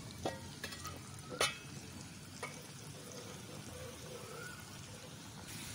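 Potato fries deep-frying in hot oil in an iron kadai, a faint steady sizzle, with three light clicks of a metal ladle in the first few seconds.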